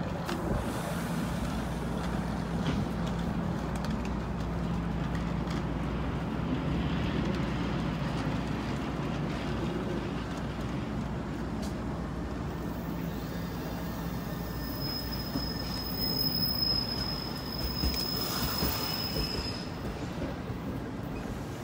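NJ Transit double-decker passenger train moving along the platform: a steady rumble of wheels on rail with a low hum. For a few seconds in the second half a thin, high, steady wheel squeal rises above it.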